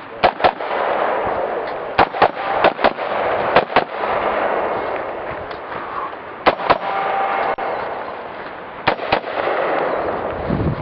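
Rifle gunshots fired in quick pairs, about six double taps with pauses of one to two and a half seconds between them, over a steady background rush.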